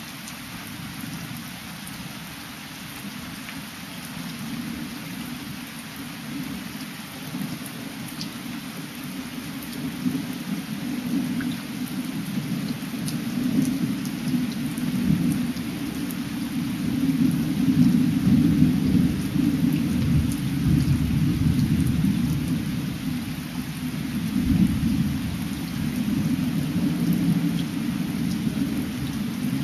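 Thunder from a passing thunderstorm rolling over steady rain. The low rumble builds through the first half, is loudest just past the middle, and keeps rumbling to the end.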